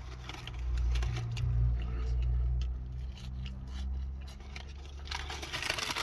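Chips being chewed close to the microphone, with small crunching clicks over a low steady hum.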